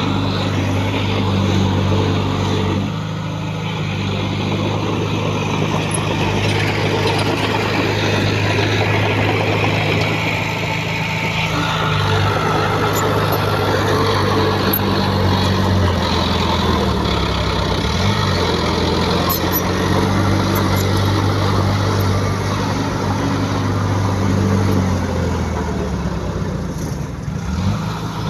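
Heavy earthmoving machine's diesel engine running steadily, its pitch dipping and recovering briefly about two-thirds of the way through and again near the end.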